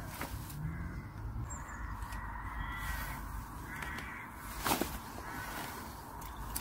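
A bird gives a couple of calls over steady background noise. About three-quarters of the way through there is a single short, sharp noise.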